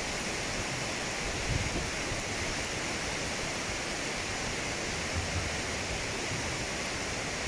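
Flash-flood water in a wadi rushing steadily, muddy floodwater churning through standing waves.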